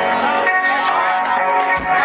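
Rock band playing live at a soundcheck, with held, thick chords and a few low thuds near the end.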